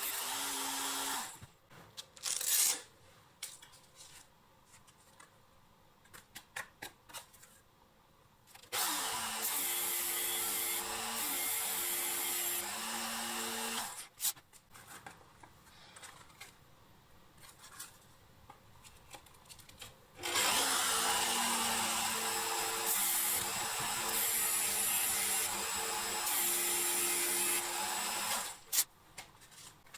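A small electric power tool, run in three spells of several seconds each while working the axe head. Between spells there are quiet gaps with small clicks and knocks.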